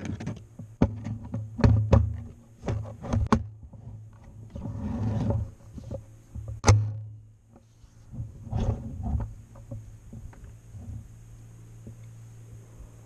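Handling noise from an AR-15 carried through a camera mounted on its handguard: a run of sharp knocks and clunks as the rifle is gripped and shifted on the bench, with a rustling swell before the loudest single knock about halfway through, then only a low steady hum.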